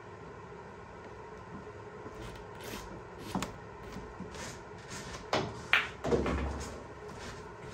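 Pool balls on a billiard table: a sharp click a little after three seconds in, then a quick run of clacks and knocks between about five and six and a half seconds, the last a heavier, low thud.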